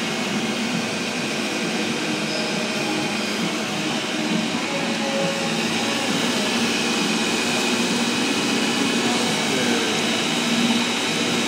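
MEP Shark 320 CNC horizontal band saw running a semi-automatic cycle: its gear-driven two-speed electric motor and blade make a steady mechanical hum with a faint high whine.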